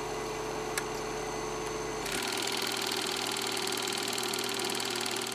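Tape-static transition effect: a steady electronic hum with hiss, like a worn VHS tape playing. About two seconds in, the low hum drops away and the hiss grows brighter, then it fades out.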